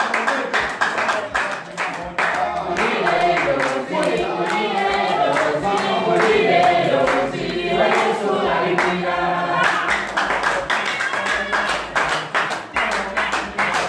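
A congregation singing together in praise, with steady rhythmic hand-clapping; the singing is fullest in the middle, and the clapping stands out near the start and end.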